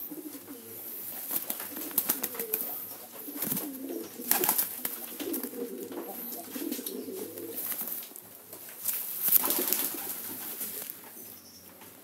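Domestic pigeons cooing in a low, warbling run, with a few brief noisy rustles of feathers and wings about four and nine seconds in.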